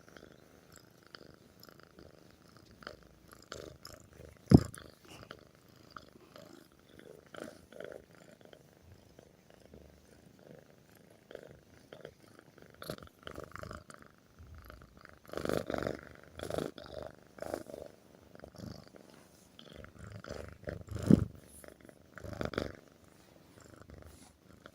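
Domestic cat purring loudly while its head is scratched; the purr comes in rhythmic pulses that swell louder in stretches. Two sharp knocks stand out, one about four and a half seconds in and one about twenty-one seconds in.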